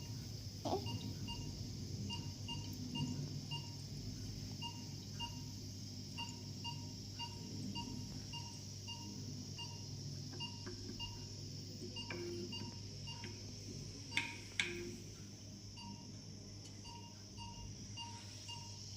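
Neonatal patient monitor beeping in short, regular blips about two to three times a second, over a steady low hum. Two sharp clicks a little after the middle.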